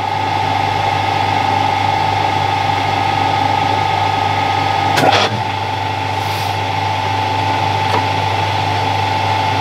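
Harrison M300 geared-head lathe running steadily with a high, even gear whine while a die in a tailstock die holder cuts a thread on the end of an M8 bolt. A single sharp clack about halfway through.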